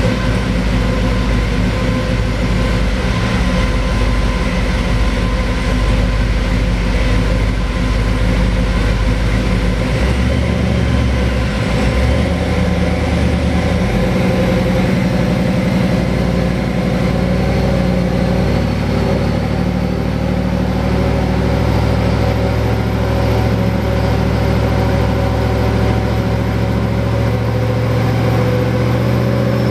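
ProCharger-supercharged 5.3-litre V8 of a 2003 Chevy Silverado running steadily on a chassis dyno, its pitch holding level rather than sweeping up through a pull. The note shifts slightly about ten seconds in and again a few seconds later.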